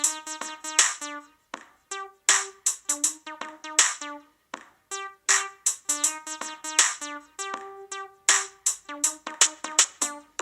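Music played through a Lenovo K6 Power smartphone's built-in speaker: a track of short, sharp keyboard-like notes over a drum-machine beat. It sounds thin, with almost no bass.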